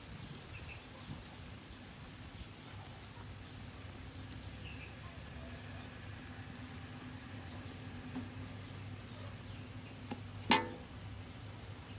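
Quiet outdoor background: a steady faint hiss and low hum, with a faint high chirp repeating about once a second. About ten and a half seconds in comes one short, sharp call, the loudest sound.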